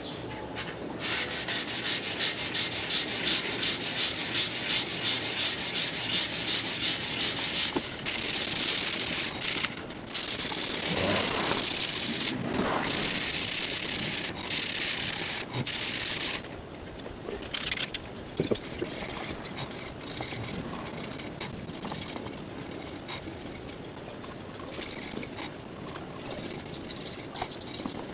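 Sandpaper rubbing back and forth on the bare cast aluminum of a motorcycle alloy wheel in quick rhythmic strokes, about two a second. After about sixteen seconds it drops to lighter, scattered scrubbing.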